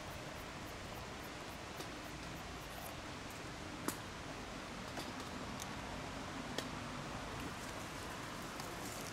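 Steady background hiss with a few light, scattered clicks.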